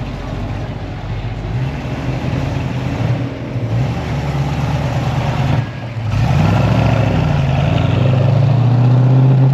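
1968 Ford Mustang GT's V8 engine and exhaust running as the car rolls forward at low speed. About two-thirds of the way through it gets louder as the car pulls away, the engine note rising a little and holding.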